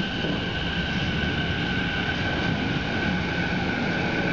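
JR Chuo Line Rapid E233 series electric train moving past the platform: a steady low rumble with a steady high whine over it.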